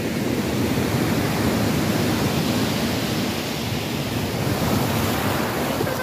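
Sea surf breaking and washing around a wooden groyne in a steady rush, with wind blowing across the microphone.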